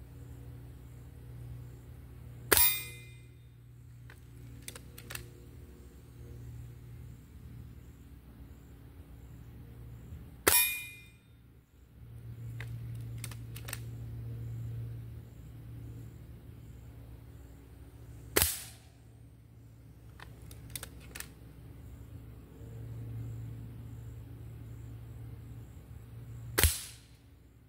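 Gamo Swarm Whisper .22 break-barrel air rifle fired four times, about eight seconds apart, firing Crosman hollow-point pellets at hanging steel targets; each shot is a sharp crack with a short metallic ring. Fainter clicks between shots come from the rifle being cocked and reloaded.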